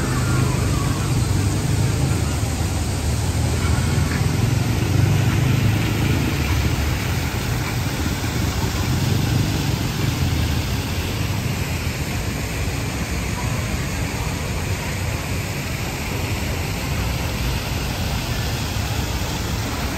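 Steady noise of a busy city street: traffic running past under a general hubbub.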